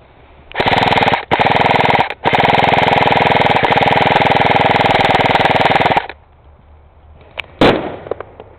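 Airsoft gun firing on full auto, a fast rattle of shots in three bursts: two short ones, then one long burst of about four seconds. A single sharp knock follows near the end.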